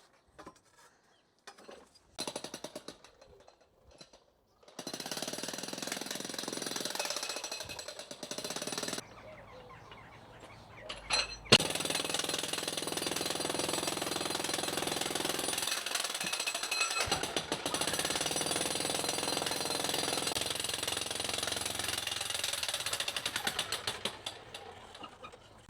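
Jackhammer breaking concrete: a few short bursts at first, then steady rapid hammering, a lull with a single sharp knock, and steady hammering again for the rest.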